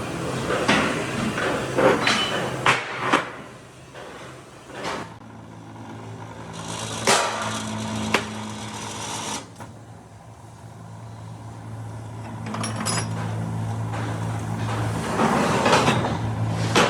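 Sharp metal knocks and clanks, several in the first few seconds and more near the end, over a steady low machine hum that runs through the middle.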